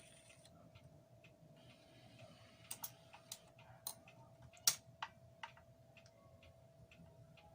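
Garrard SL-95 record changer's mechanism clicking through its auto-return cycle at the end of the last record: a series of light, irregular clicks over a faint steady motor hum, the loudest about two-thirds of the way in. It is the sign that the changer is returning the arm to its rest and shutting off instead of repeating, the fault the repair set out to cure.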